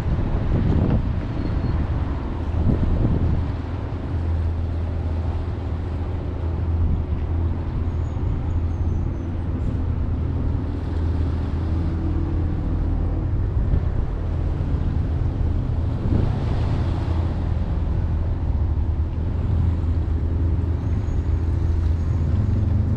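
A steady low engine-like rumble with a noisy hiss over it, holding even throughout.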